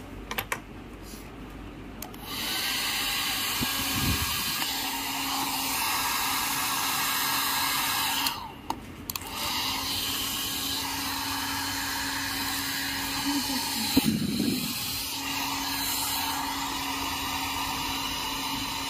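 Small handheld hair dryer running: a steady rush of air with a low motor hum, switched on about two seconds in. It cuts out for about a second near the middle, then runs again until it stops near the end.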